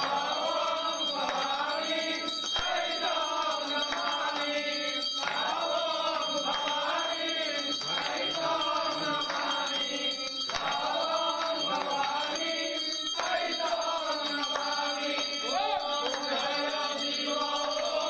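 Several male voices chanting Sanskrit mantras together, in repeated phrases of about two and a half seconds, each followed by a short break.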